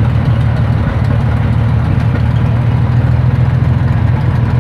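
1936 Buffalo fire engine's motor running steadily while it drives the truck's 1000 gpm pump, drafting water from a portable drop tank.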